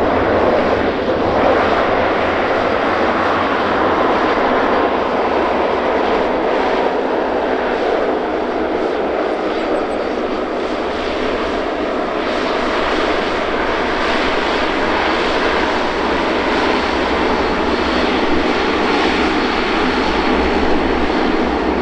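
De Havilland Canada Dash 8-400's two Pratt & Whitney PW150A turboprop engines and propellers running during the landing rollout, a loud, steady noise. Near the end a steady propeller tone comes through more clearly.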